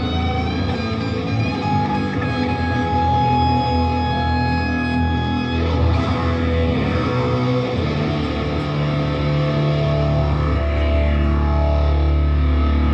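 Live band playing an instrumental passage on electric guitars, with held ringing notes. Deep low notes build up about eight seconds in.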